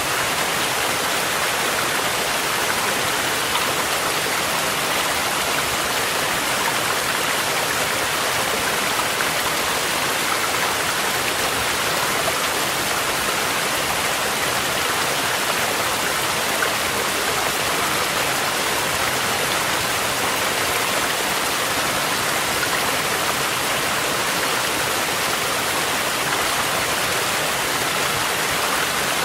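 A mountain stream's steady rush of water mixed with falling rain, even and unbroken, with no thunder.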